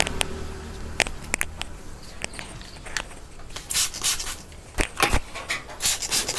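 Massage sounds of hands on skin and hair: a few sharp clicks and taps, then several short rubbing noises in the second half. A low hum stops about a second in.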